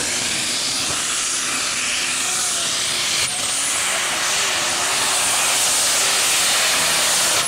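Modified pulling tractor's multiple engines running flat out under load as it drags the weight sled, a loud, steady, hissing noise that grows slightly louder over the second half.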